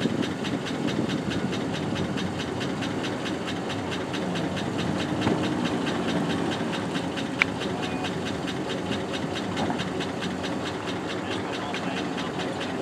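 An engine idling steadily under a steady hiss, with one sharp click about seven seconds in.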